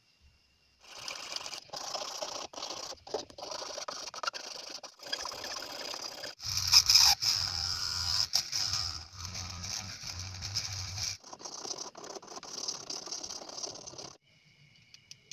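Tools scraping and grinding on the hard plastic body of a gas lighter, in short strokes with brief pauses. About halfway through, a handheld mini grinder runs steadily for around four seconds, grinding the plastic. Near the end a steel file rasps on the plastic, then the scraping stops.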